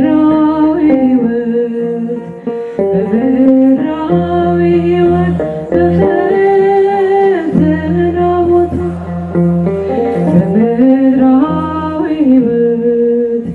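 Ethiopian Orthodox hymn (mezemur) sung by a woman, in long held notes that slide from one pitch to the next, over instrumental accompaniment with a steady low bass.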